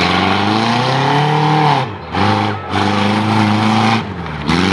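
2000 Subaru Forester's flat-four engine revving as the car accelerates across dirt. Its pitch climbs and falls, and it lets off briefly about two seconds in and again near the end before picking up.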